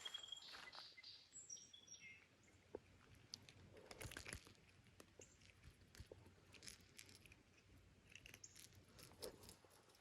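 Near silence with faint outdoor ambience. A few short bird chirps come in the first two seconds, and scattered faint clicks and crunches follow.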